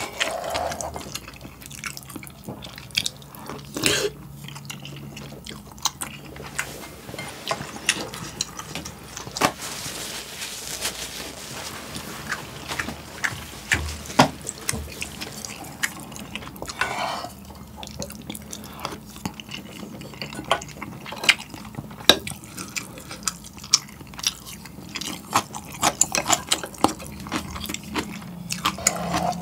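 Close-miked eating sounds of instant ramyeon and soup: many small wet clicks, smacks and slurps, with a spoon stirring in the saucepan.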